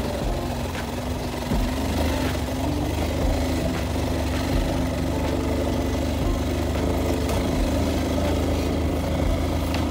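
Engine of a passenger vehicle running steadily, heard from inside as it drives along a rough dirt road, with a few light knocks from the ride.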